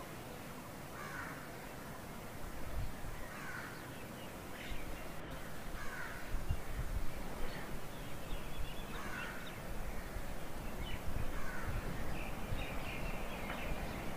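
Crows cawing outdoors, about five separate calls a couple of seconds apart, with a few short higher chirps, over steady low background noise.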